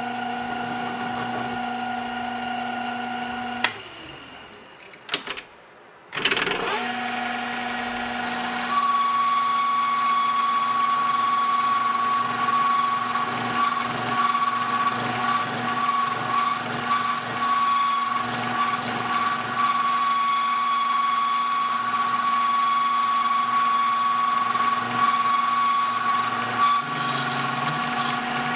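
Old metal lathe spinning a length of thin-wall steel EMT tubing in its chuck, running with a steady whine. About four seconds in the sound drops away briefly with a few clicks, then the lathe comes back. From about eight seconds a louder, higher whine joins and holds steady.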